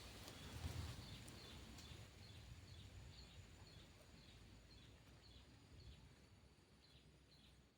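Faint outdoor ambience with a small bird chirping: short high chirps repeated about twice a second over a soft hiss, with a low rumble in the first second.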